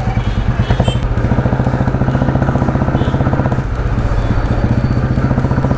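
A 1991 Royal Enfield Bullet's single-cylinder four-stroke engine running under way, a steady, rapid exhaust beat that eases off briefly a little after halfway.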